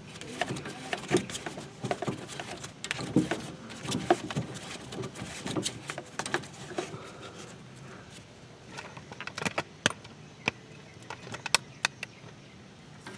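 Scattered light metallic clicks, clinks and knocks of hand work on a car's front tie rod, as the outer tie rod end and its jam nut are threaded onto the inner tie rod. The clicks are denser in the first half and sparser, sharper ones follow.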